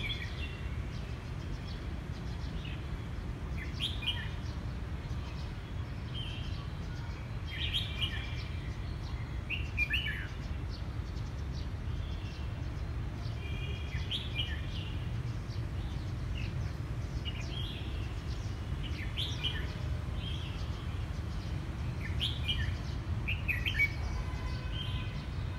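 Oriental magpie-robin singing short phrases of chirps and whistles, one every second or two, over a steady low background rumble.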